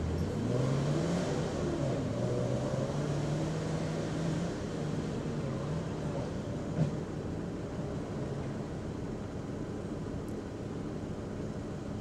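Four-wheel-drive engine revving under load on a dirt climb: the pitch rises over the first second, holds for a few seconds, then drops away to a lower steady running. A single sharp knock comes about seven seconds in.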